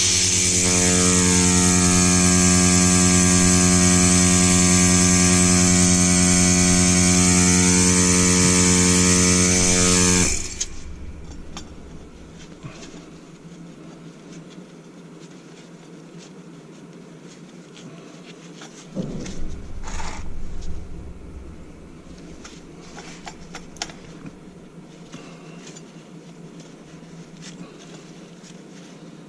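Dry rotary-vane vacuum pump of a Burenka milking machine running with a steady hum and hiss, then switched off about ten seconds in. Afterwards only faint clicks and a brief knock or two of handling.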